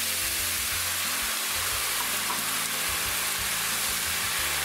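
White wine sizzling steadily in a hot frying pan of sautéed rice and mushrooms as it boils off, with background music underneath.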